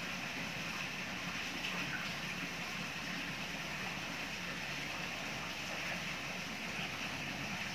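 Water pouring steadily from the tiered spillways of a small decorative rock waterfall and splashing into the pond below.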